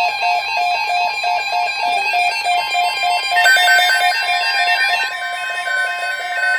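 Electronic alert beeping from a weather radio receiver: a rapid run of short, even beeps, about six a second, with a second, higher beep pattern joining a little past halfway. It is the alarm for an incoming severe-weather alert on the weather radio.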